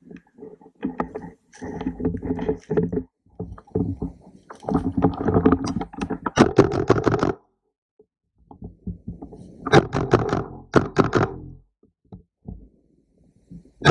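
Rumbling, scraping handling noise from a camera mounted on an airsoft rifle as it is carried and moved, in uneven bursts with short pauses. There is a cluster of sharp snaps about ten seconds in.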